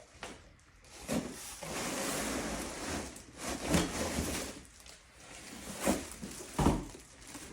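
Unboxing the plastic creeper and its parts: a stretch of scraping and rustling, then a few sharp knocks as pieces are handled and set down.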